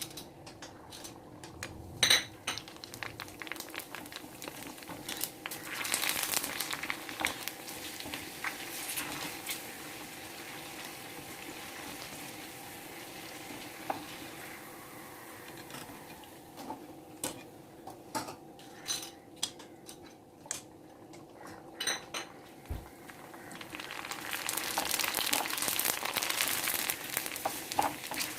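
Puris deep-frying in hot oil in a wok, a steady sizzle that swells twice, with sharp clinks of a metal ladle against the pan.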